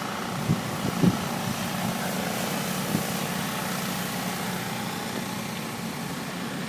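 Steady low hum of an idling vehicle engine under an even hiss, with a few soft knocks in the first three seconds.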